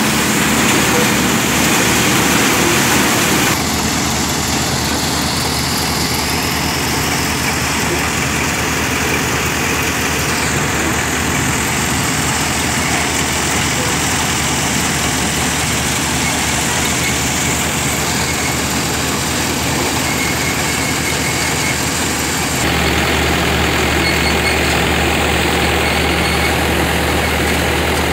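Tractor-driven Mahindra Hadamba thresher running steadily under load, its drum and fans droning together with the tractor engine that powers it. The sound changes abruptly about four seconds in and again near the end.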